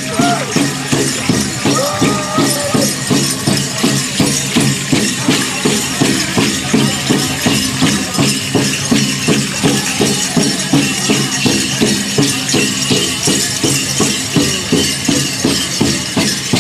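Pow-wow drum group beating a big drum in an even, fast beat of about two to three strokes a second for the Grand Entry, with voices singing over it. The bells on the dancers' regalia jingle throughout.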